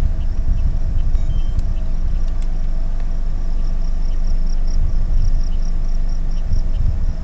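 A car's engine running while the car sits still, a low steady rumble. A faint high chirping repeats rapidly through the second half.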